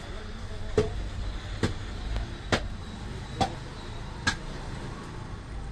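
Small knife slicing a banana into an opened tender coconut, the blade clicking against the coconut five times, a little under a second apart, over a steady low rumble of street traffic.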